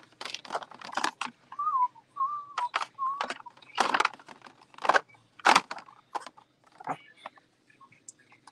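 A person whistling a few short, wavering notes in three brief phrases, among sharp clicks and clacks of carded toy packaging being handled and knocked on shelf pegs.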